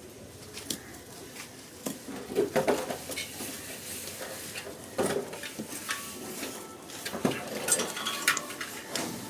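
Irregular light clinks, knocks and scrapes of hard objects being handled, loudest around two and a half seconds in, at five seconds, and in a cluster near the end.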